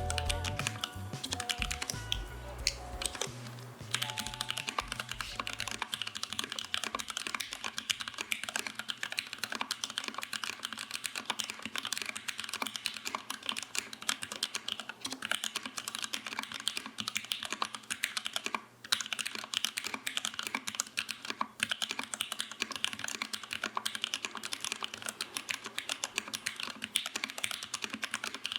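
Fast, continuous typing on a Boardsource Mark 65 custom mechanical keyboard: a dense run of key clicks and clacks from the switches bottoming out. Background music plays under the typing for the first few seconds, then ends.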